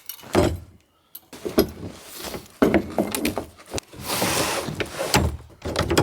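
Irregular metal knocks, clicks and rattles as the tow sled's hitch is worked at on the back of a snowmachine. The hitch is frozen and stiff.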